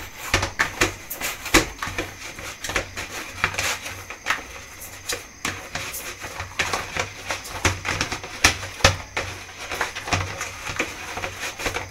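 Hands kneading chapati dough in a plastic basin: a quick, irregular run of soft slaps and knocks, several a second, as the dough is pressed and turned against the basin. The dough is nearly ready, no longer sticky and coming away from the basin and the hands.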